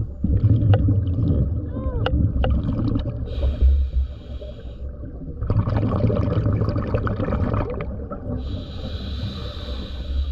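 Scuba diver breathing through a regulator underwater: twice a long gurgle of exhaled bubbles, each followed by the steady hiss of an inhale through the regulator.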